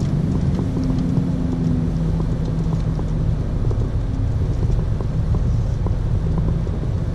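Semi-truck's diesel engine running steadily at low speed, heard from inside the cab: a low rumble with a steady hum, and faint light rattles.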